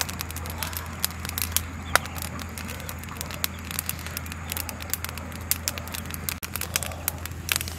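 Charcoal embers crackling, with irregular sharp pops over a steady low hum; the loudest pops come about two seconds in and near the end.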